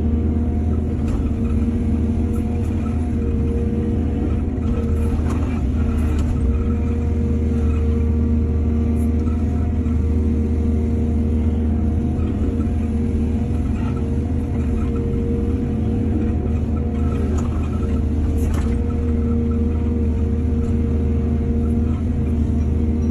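Heavy diesel excavator engine running steadily under working load, a deep, even rumble with a few faint clicks.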